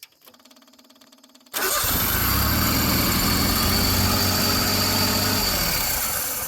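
A faint steady hum, then about a second and a half in the 1988 John Deere 322's Yanmar three-cylinder gas engine starts and runs steadily. It is running on a newly fitted fuel pump that now delivers fuel to the carburettor.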